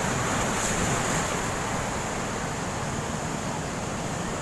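Sea surf rushing onto the beach in strong wind, with wind buffeting the microphone: a steady rush of noise, a little louder in the first second.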